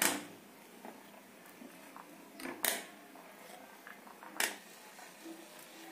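A steel spoon knocking against a kadhai three times, sharply and briefly, over the faint bubbling of tamarind boiling in water.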